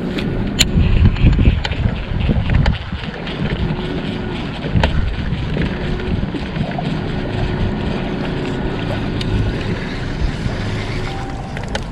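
Wind buffeting the microphone on a small boat on choppy water, a steady low rumble with a few sharp clicks.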